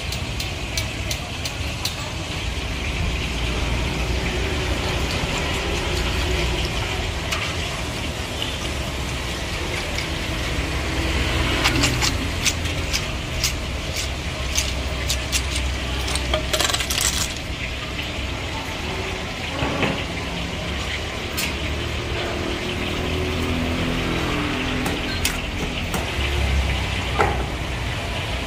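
Food-stall cooking sounds: metal ladles, strainers and utensils clinking against aluminium pots and pans in sharp scattered clicks, over a steady low rumble of street traffic.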